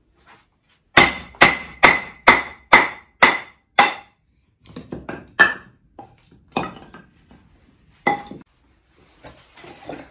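Stihl German-style hatchet striking a short length of green wood on a chopping block to split it: seven quick sharp strikes about two a second with a slight ring, then softer irregular knocks and crackles.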